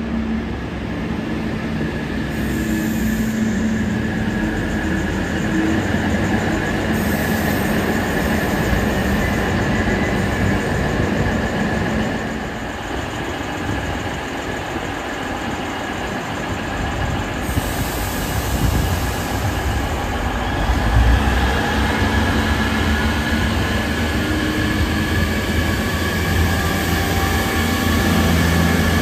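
NSW TrainLink Hunter railcar, a diesel multiple unit, pulling slowly into the platform: a steady low rumble of its underfloor diesel engines and wheels on the rails, with a thin steady high tone over it. The rumble grows louder in the last third as the cars pass close by.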